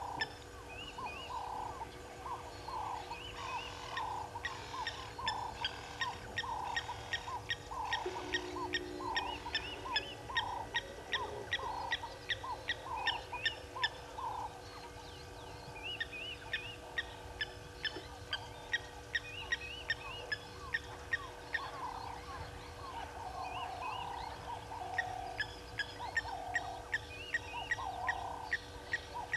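Several birds calling together at once: fast runs of sharp ticks, several a second, over a steady stream of short rising-and-falling notes repeated about twice a second.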